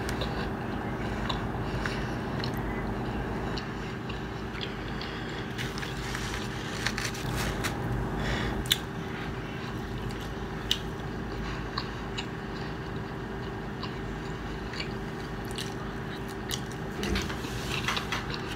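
Close-miked chewing of pizza, with many short wet clicks and smacks from the mouth scattered through, over a steady low hum.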